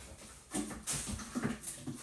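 A pet dog making a few soft whimpering sounds.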